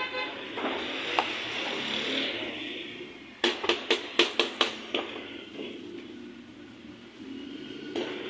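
A quick run of about seven sharp knocks as roti dough on its padded cushion is slapped and pressed against the inside wall of a tandoor. A steady hiss is under it.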